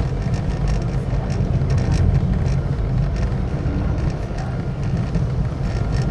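Car driving along: a steady low road and engine rumble, heard from inside the moving vehicle.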